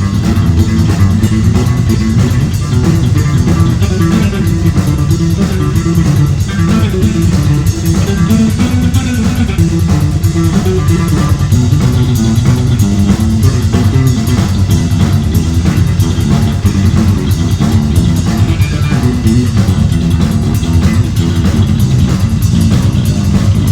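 Heavy metal band playing loudly: electric guitar, bass guitar and drum kit.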